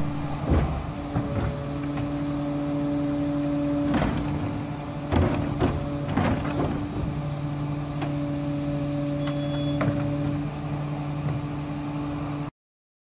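Geesink Norba refuse truck's rear bin lift working: a steady hum from the engine-driven hydraulics as a wheelie bin is raised and tipped into the hopper, with metal clanks and knocks, most of them between about four and seven seconds in. The sound cuts off suddenly near the end.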